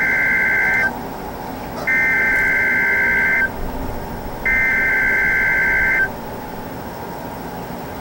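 Three long electronic beeps, each about a second and a half with a second's pause between them, each a chord of a few close high tones. They are plausibly radio activation tones sent just before an outdoor warning siren starts its test.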